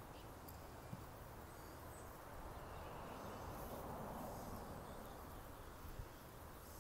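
Quiet rural outdoor ambience: a soft rushing noise swells and fades in the middle, with faint high bird chirps and two small clicks, about a second in and near the end.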